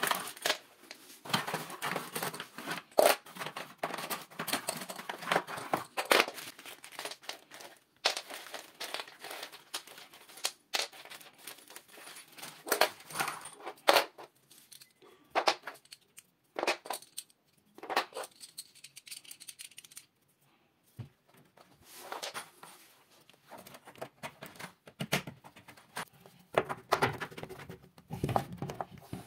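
Cardboard packaging being torn open and rummaged through, with irregular rustles and tearing, and sharp clicks and knocks as small plastic wardrobe fittings are set down on the floor and pushed into the frame.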